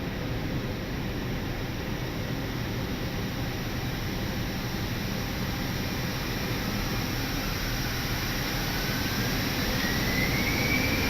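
Airbus A319's twin jet engines spooling up to takeoff thrust, heard from inside the flight deck: a steady rumble that grows gradually louder, with a whine that rises in pitch over a few seconds near the end and then holds steady.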